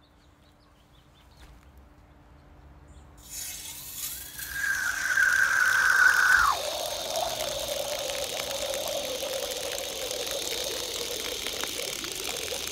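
Water coming on through a pipe riser fitted with a Dole 3/4 GPM flow control valve and pouring out of an open elbow onto the ground. A steady high squeal sounds in the line as the flow starts, drops suddenly to a lower whistle about six and a half seconds in, and then slowly sinks in pitch while the water keeps splashing.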